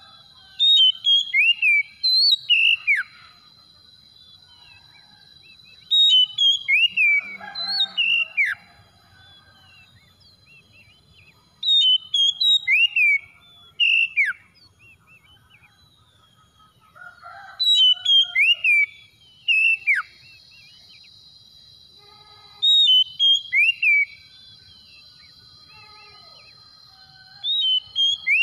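Oriental magpie-robin (kacer) singing: a loud whistled phrase of several quick notes, many sliding steeply downward, repeated six times about every five to six seconds.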